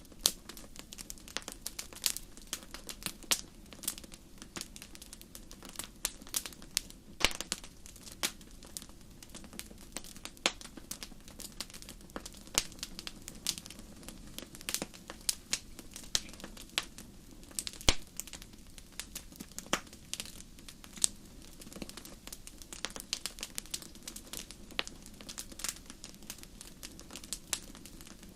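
Wood fire in a fireplace crackling: many irregular sharp pops and snaps, a few louder than the rest, over a faint steady low background.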